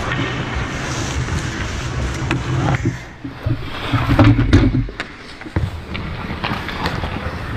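Ice hockey play at the goal crease heard from inside the net: skates scraping the ice, with scattered sharp clacks, and a cluster of loud knocks and thumps about four seconds in as players jam in around the goalie.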